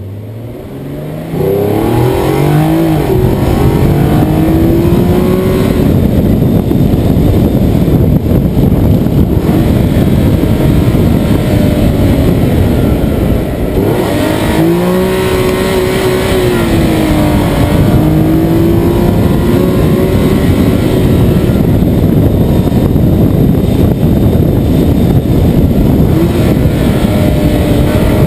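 Nissan 370Z's 3.7-litre V6 under hard acceleration, its pitch climbing steeply through the first few seconds. After that the revs rise and fall as the car is driven, with another strong climb about halfway through, over a heavy low road and wind rumble.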